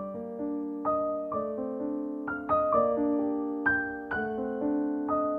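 Soft piano music: single notes struck about every half second over held chords that ring on and overlap.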